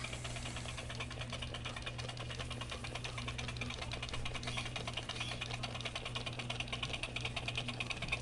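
Gemmy animated crawling hand toy running, its motor-driven finger mechanism clicking rapidly and steadily as it drags itself forward, over a low motor hum.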